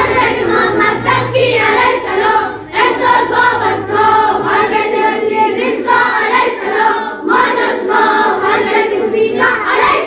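A group of children singing in unison, a devotional chant of the names of the twelve Shia imams. It goes in long phrases with brief breaks about a quarter and three quarters of the way through.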